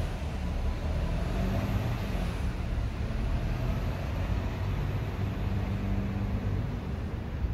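Steady rumble of road traffic crossing the bridge overhead, engine hum mixed with tyre noise.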